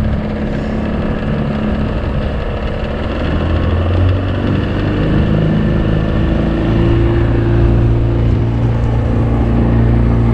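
Motorboat engine running under way, a steady drone whose pitch and level step up twice as the boat picks up speed.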